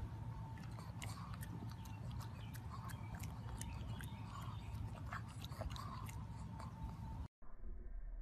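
A pug chewing grass: many irregular crisp crunching clicks over a steady low rumble. The sound cuts out abruptly near the end.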